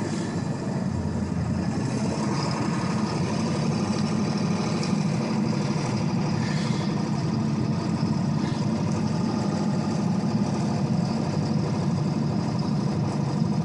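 2002 Ford F-250 pickup driving on a deep snow-covered road, its engine running at a steady, even drone.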